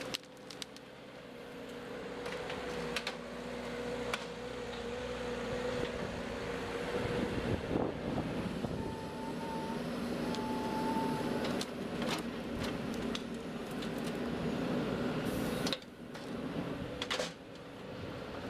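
Forestry machine's diesel engine and hydraulics running steadily, with a held hum and scattered clicks and knocks; the sound dips briefly about 16 seconds in.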